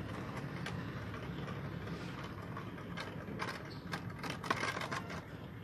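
Beyblade Burst top (Bloody Longinus) spinning on the plastic floor of a Beyblade stadium, tilted over and wobbling, with a steady whirr and scattered sharp clicks and rattles as it scrapes and knocks, coming thickest in the second half.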